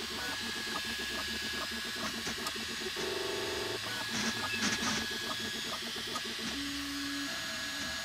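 Bambu Lab X1 Carbon 3D printer running its device self-test: its motors whine in short steady tones that change pitch from one move to the next as the toolhead moves, with scattered ticks over a constant hiss. The sound is brightest and loudest about four to five seconds in.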